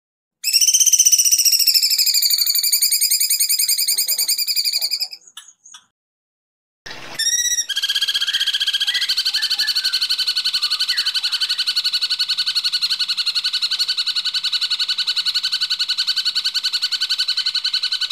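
Recorded songbird song for masteran training: a fast, buzzing trill for about four seconds, a short break with a few quick sweeping notes, then one long, even, rapidly pulsed trill held for about ten seconds.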